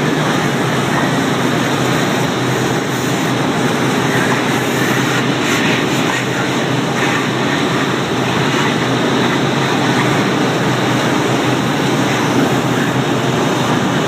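Vacuum cleaner running steadily, a loud, even noise with no change in level.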